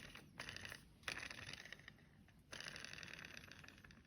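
Faint clicking and scraping of hand coffee grinder parts being handled, in three short bursts of rapid ticks.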